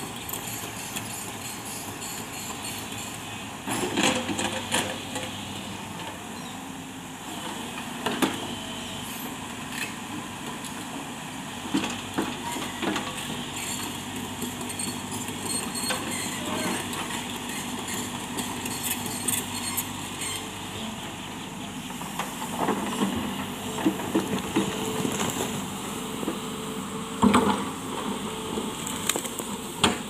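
SANY crawler excavator's diesel engine running steadily under load while it digs and shifts earth and rocks, with several sharp clanks and thuds from the bucket and stones.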